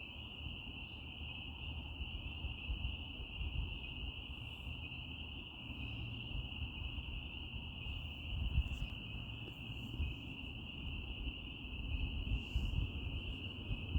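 A dense chorus of tree frogs calling, heard as one continuous high-pitched ringing that never breaks, over a low irregular rumble.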